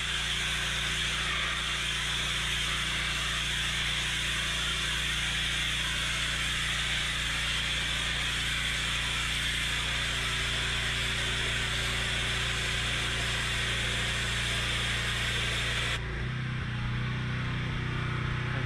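Pressure washer jet spraying onto stone paving slabs: a steady hissing rush of water over the machine's constant hum. About 16 seconds in the spray hiss cuts off suddenly and the hum carries on.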